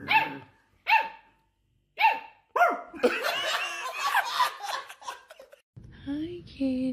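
Husky puppy giving four short, high yelping barks that fall in pitch, over the first three seconds, followed by people laughing. Near the end a lower, wavering voice-like call follows.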